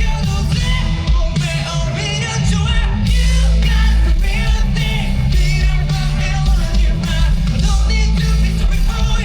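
Live rock band playing loud, heavy music with distorted guitars, bass and drums, and singing over it.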